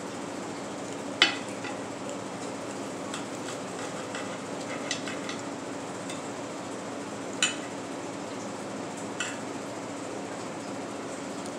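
Knife and fork clinking and scraping on a plate while a steak is cut: a sharp clink about a second in, the loudest, and two more later, with light ticks between. A steady low hum runs underneath.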